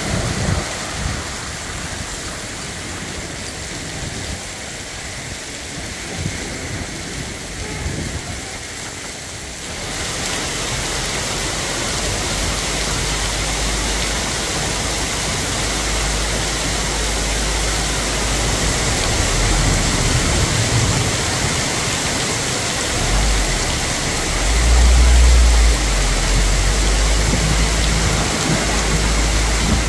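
Heavy rain pouring onto a street, a steady hiss that thickens suddenly about ten seconds in. A car splashes through flood water at the start, and a deep low rumble builds in the second half, loudest about 25 seconds in.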